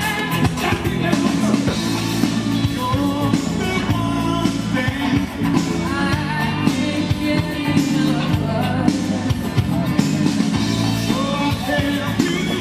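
Upbeat song with a singing voice over a steady beat and bass line, played for a group dance.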